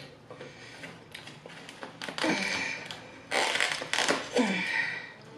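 Clear plastic lid of a small takeout side container crackling and creaking as it is handled and pried open, about two seconds in and again, louder, from about three and a half to nearly five seconds in.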